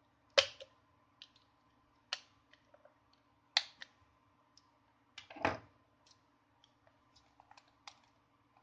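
Sparse sharp clicks and small knocks of plastic and metal as a Samsung Galaxy S5's midframe is pried and unclipped with a small screwdriver and the loosened frame is handled. The loudest click comes about half a second in and a fuller knock about five seconds in, over a faint steady hum.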